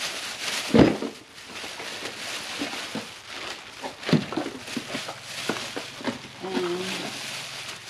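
Plastic bags and cardboard rustling and crinkling as items are handled and unpacked, with a loud thump about a second in. Near the end there is a short, low voice-like sound.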